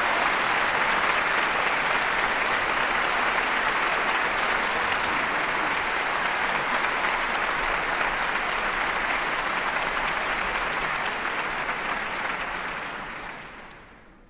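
A crowd applauding: steady, dense clapping that fades out smoothly near the end.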